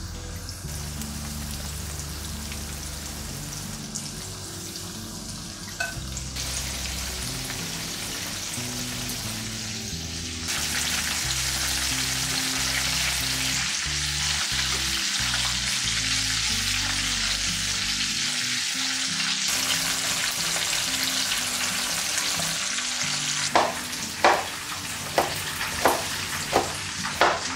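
Hot oil sizzling and bubbling around breaded chicken wings deep-frying in a pan, growing louder about ten seconds in. Near the end, a chef's knife chops garlic cloves on a cutting board, about two quick strikes a second.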